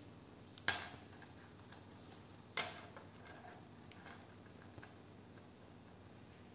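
Faint clicks and taps of metal knitting needles and a ring stitch marker being handled: a sharper click less than a second in and another about two and a half seconds in, then a few softer ticks.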